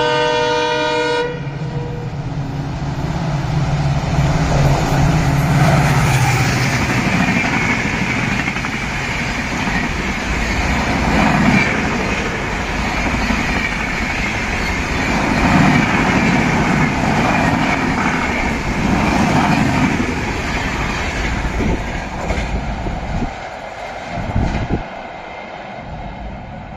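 A WDP4D diesel locomotive's horn sounds a chord that cuts off about a second in. The locomotive's engine rumbles past, then its LHB coaches rush by at about 130 km/h for some twenty seconds with a steady clatter of wheels on rail. The noise tails off near the end with a few knocks as the last coach passes.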